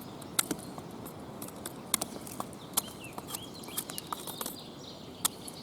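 Victorinox Soldier pocket knife with a partly serrated blade whittling a point on a stick of hard wood: irregular sharp clicks and scrapes as each stroke bites and shaves the wood.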